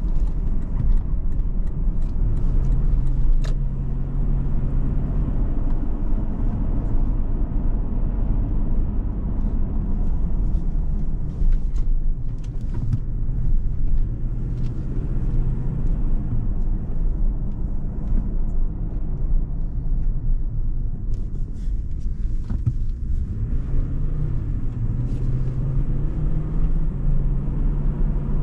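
Supercharged Toyota Land Cruiser V8 running under way, with a steady low rumble of engine and road. The engine note holds, eases off and climbs again about three-quarters of the way through, and a few light clicks show up now and then.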